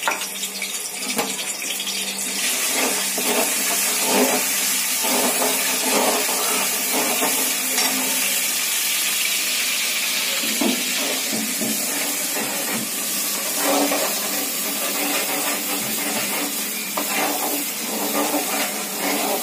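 Garlic frying in hot cooking oil in a kadhai: a steady sizzle.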